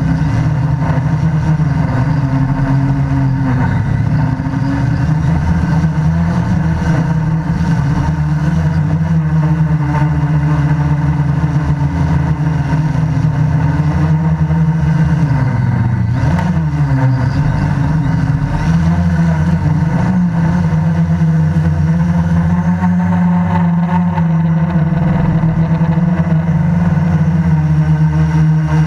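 A QAV500 quadcopter's electric motors and propellers heard from the camera on board, a loud steady buzz whose pitch drifts up and down as the motors change speed, dipping briefly and recovering about halfway through.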